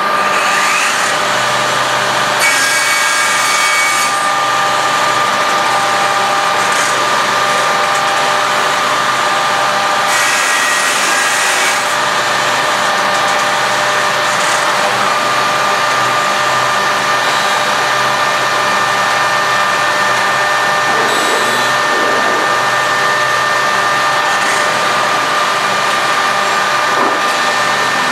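Weeke BMG111/Venture 108M five-axis CNC machining centre at work: a steady high spindle whine over a rush of air and extraction. Two louder stretches of hiss come about two and a half seconds in and again around ten seconds in.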